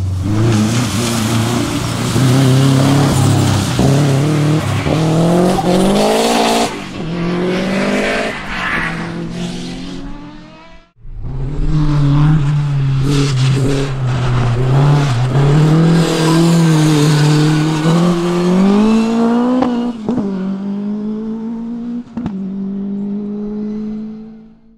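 A racing car's engine at full throttle, accelerating hard: its pitch climbs and drops back again and again as it changes up through the gears. The sound breaks off sharply near the middle, then a race engine comes back, running steadily before climbing once more and dropping back at a gear change.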